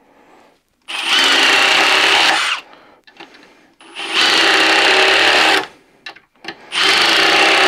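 Milwaukee M18 Surge hydraulic impact driver driving 3.5-inch deck screws into a wooden beam. It makes three runs of about a second and a half each, separated by short pauses, and the third run starts near the end.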